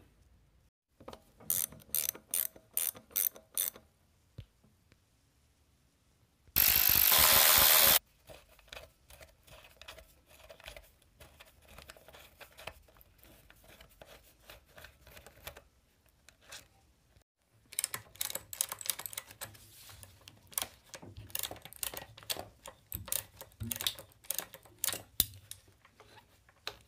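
Ratchet wrench clicking in short runs while bolts are worked loose. A loud, harsh burst of noise lasting about a second and a half comes a few seconds in.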